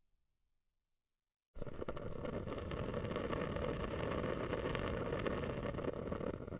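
Water running steadily, a dense splashing rush that starts abruptly about a second and a half in after silence.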